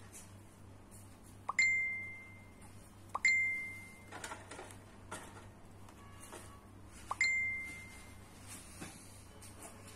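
Three clear bell-like dings, each opening with a quick double tick and then ringing at one pitch as it fades over about a second. The first comes about a second and a half in, the second about a second and a half after it, and the third a few seconds later.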